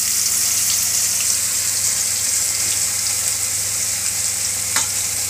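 Marinated pomfret fish pieces deep-frying in hot oil in a kadai: a loud, steady sizzle, with a sharp tick or two near the end.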